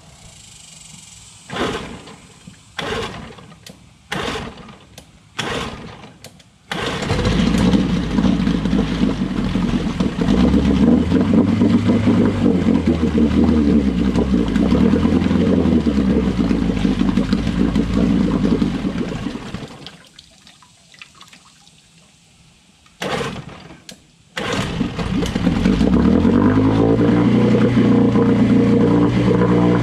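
1972 Johnson 9.5 hp two-stroke outboard being pull-started in a test barrel after a second carburetor rebuild. About five quick pulls come first; it catches about seven seconds in and runs unevenly, its speed rising and falling, then dies after about twelve seconds. Two more pulls near the end restart it, and it speeds up and settles into a steady run.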